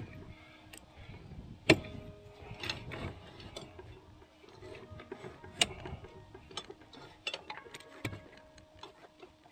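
Scattered light metallic clicks and clinks of engine parts and tools being handled, with a few sharper knocks, the loudest about two seconds in and a little past the middle, some leaving a brief ring.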